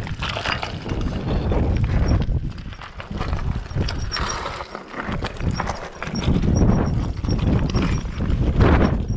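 Mountain bike descending a loose, rocky shale trail: tyres crunching and rattling over stones while the bike's chain, frame and suspension clatter with every bump. It eases briefly about halfway through, then picks up again.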